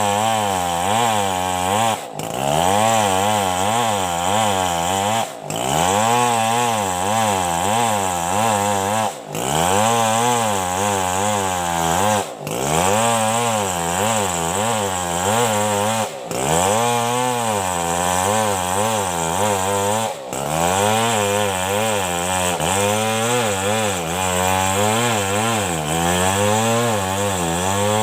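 Chainsaw running under load while ripping a coconut palm trunk lengthwise, its engine pitch wavering up and down as the cut goes. Brief drops in level break in every three to four seconds.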